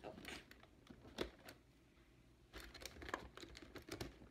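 Scissors cutting the sides of a cardboard action-figure box: a scatter of short snips and crinkles, with a pause in the middle and busier cutting near the end.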